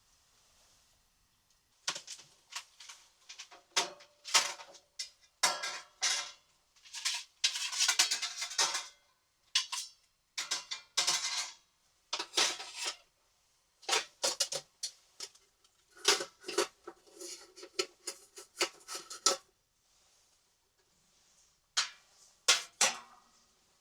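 Metal cookware and utensils being handled: irregular clusters of clinks, knocks and rattles, some with a short metallic ring. The handling pauses briefly near the end, then a few more clinks follow.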